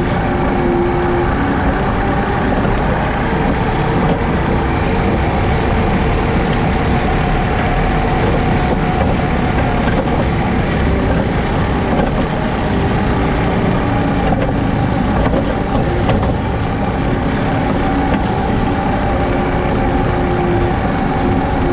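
Diesel engine of a JCB teleskid skid steer running steadily under load, driving a 7-foot Jenkins bush hog rotary mower as it cuts. The engine's tone wavers slightly in pitch but holds steady in loudness.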